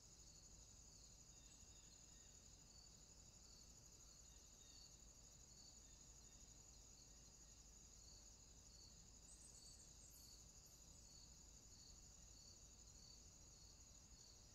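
Faint, steady high-pitched insect trill, with a softer pulse repeating about three times every two seconds underneath; otherwise near silence.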